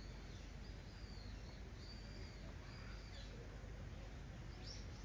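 Faint bird calls: short high chirps about once a second, with a sharper call near the end, over a low steady outdoor rumble.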